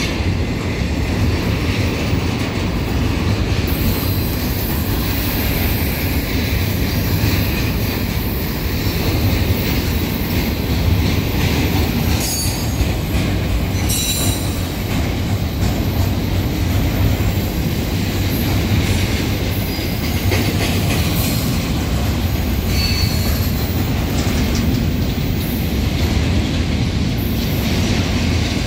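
Double-stack container well cars of a BNSF intermodal train rolling past close by: a steady, loud rumble of steel wheels on rail, with brief high-pitched wheel squeals a little before halfway and again later on.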